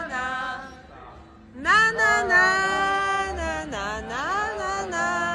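A man bawling out a song drunkenly in a high, squeaky voice. After a short phrase and a brief pause, he holds long loud notes with slides up and down, breaking off once near the end.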